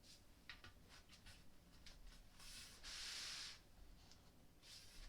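Faint handling noises of flat-pack furniture parts being fitted together: a few light clicks and a rubbing scrape lasting about a second near the middle.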